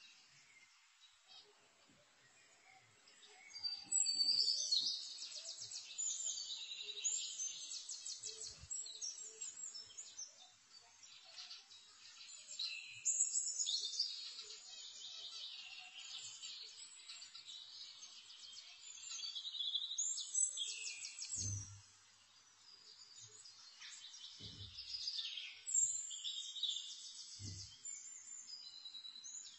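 Small birds chirping and trilling in repeated spells, with three soft low thumps in the last third.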